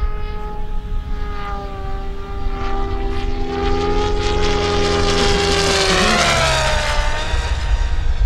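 JR Propo Forza 700 electric RC helicopter on a high-speed pass: a steady rotor and motor whine grows louder, then drops in pitch about six seconds in as the helicopter goes by. A low rumble of wind on the microphone runs underneath.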